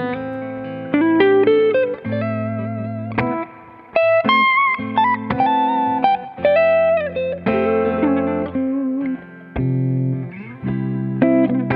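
Two electric guitars played together through AmS amplifiers: chords underneath a lead melody with bent notes.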